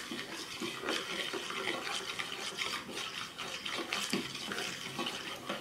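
A metal spoon stirring a watery glue-and-water mixture in a plastic bowl: continuous, irregular swishing of liquid and scraping of the spoon against the bowl.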